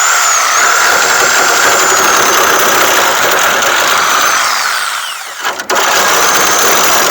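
A power cutting tool cutting through car body sheet metal, its whine steady, then sagging and cutting out for a moment about five and a half seconds in before it starts again.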